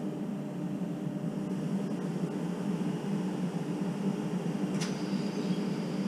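Steady electric hum of a Renfe R3 commuter train standing at the station platform, its motors and ventilation running. A brief high hiss about five seconds in.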